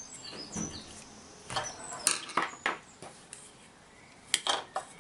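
Plastic headphone earcup housing being pulled apart and handled after its screws are out: a scatter of small clicks and knocks with brief high squeaks of plastic rubbing on plastic.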